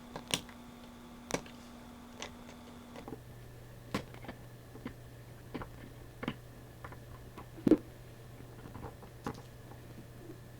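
Irregular small clicks and taps of hand tools working on a circuit board on a bench, the loudest one about three-quarters of the way through. Under them runs a faint steady electrical hum that drops lower in pitch about three seconds in.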